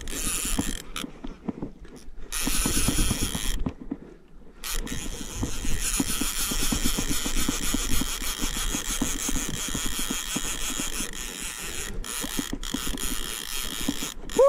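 Fishing reel being cranked against a hooked fish on a trolled lure, its gears and ratchet making rapid clicking, with two short pauses in the first few seconds.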